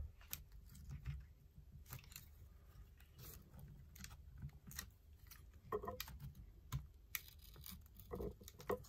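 Faint, irregular clicks and scrapes of a laptop's damaged hinge and plastic casing being levered up with a tool, the broken hinge shifting and knocking as it is worked free.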